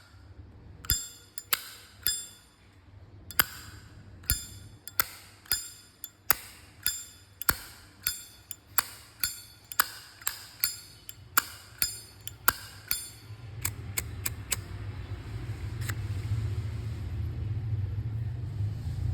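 Brushed-chrome Zippo lighter's lid flicked open and snapped shut over and over, each stroke a sharp click with a bright metallic ring, about one to two a second, the pleasing 'âm' of a sound lighter. The clicks stop about two thirds of the way through and a low steady rumble rises.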